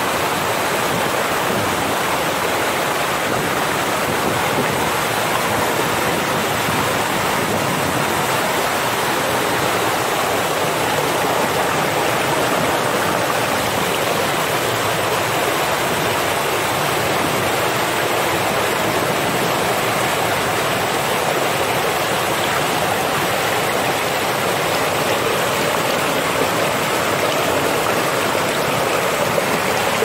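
Waterfall pouring into its plunge pool: a loud, steady rush of falling water with no let-up.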